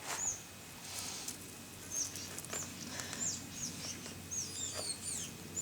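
Small birds calling: short, high chirps that slide downward, coming several at a time and thickest in the second half, with a few faint clicks underneath.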